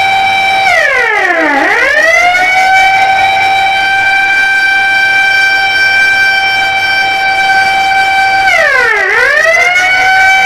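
Ramadan siren, of the kind sounded to mark breaking the fast and imsak, holding a loud steady tone. It swoops quickly down in pitch and back up once about a second in and again near the end.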